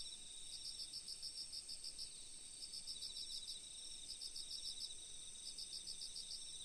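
Crickets chirping, faint: short trains of rapid high chirps repeating about every second and a half, over a steady high-pitched tone.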